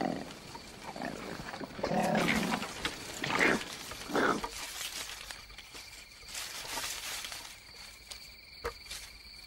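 Male koalas fighting, giving harsh growling calls in several loud bursts over the first four seconds or so. After that the calls stop and a steady high insect chirring carries on.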